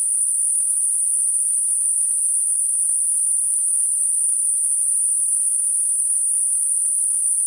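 Synthetic 9.5 kHz Gaussian narrowband noise: a steady, high-pitched hiss with no low end, unchanging in level. It is a sound-therapy masker made to cover high-frequency tinnitus ringing.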